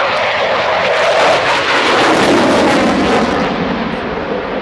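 Jet noise from a Dassault Rafale's twin Snecma M88 turbofans flying a display pass in afterburner: a loud, steady rush that eases slightly near the end.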